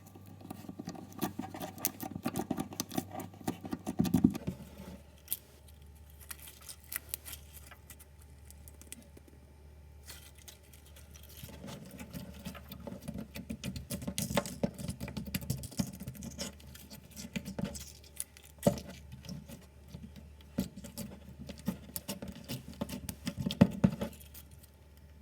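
Slime being squished, stretched and poked by hand, giving irregular sticky clicks and crackles.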